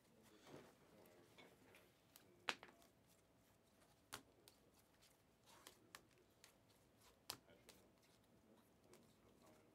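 Trading cards being handled and sorted on a table: faint scattered clicks and taps, with a sharper click about two and a half seconds in and another near seven seconds.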